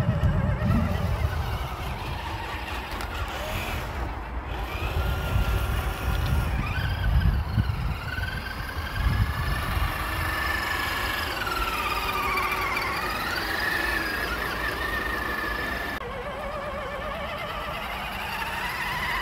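Electric motors and geartrains of 1/10 scale RC crawler trucks whining as they drive, the pitch rising and falling with the throttle, over an uneven low rumble.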